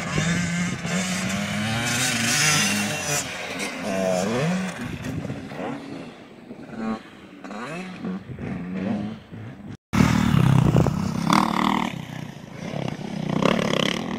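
Dirt bike engines revving up and down, their pitch rising and falling as the throttle is worked. The sound cuts out for an instant about ten seconds in and comes back louder.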